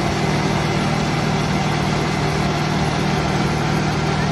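Concrete mixer truck's diesel engine running steadily at a constant pitch while the truck discharges concrete down its chute.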